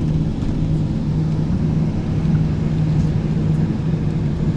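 Tour coach engine running with a steady low drone while the bus is driven along.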